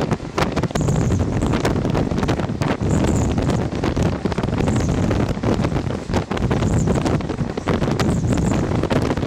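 Wind buffeting the microphone from a moving train, over the low, steady rumble of the train running along the track.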